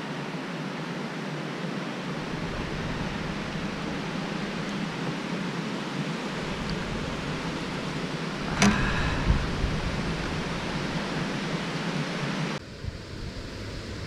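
Steady rush of wind on the microphone over water, with a brief splash about eight and a half seconds in as a largemouth bass is lifted out of the water. The wind noise cuts off suddenly near the end, leaving a quieter hiss.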